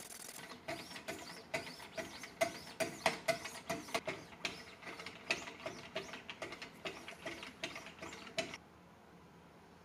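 Sharpening paddles of a Wicked Edge Gen 3 Pro guided-rod sharpener stroked along both sides of a chef's knife edge: quick rasping strokes about two to three times a second, each with a light ring from the blade, stopping about eight and a half seconds in.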